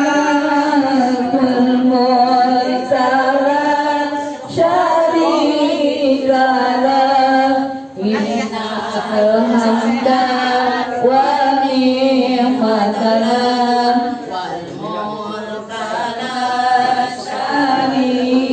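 A group of women singing an Islamic devotional chant together, a lead voice carried on a microphone, in long held melodic phrases with brief pauses between them.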